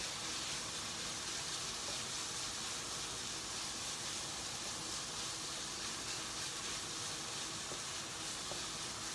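Ground meat frying in a pan, sizzling steadily.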